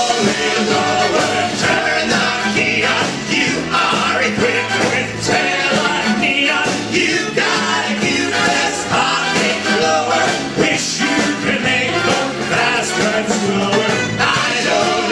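Band music with singing, loud and steady throughout.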